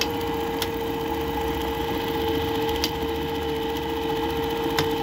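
Juki 761 industrial buttonholing machine running at a steady pitch while sewing a buttonhole, with a few faint ticks from the mechanism.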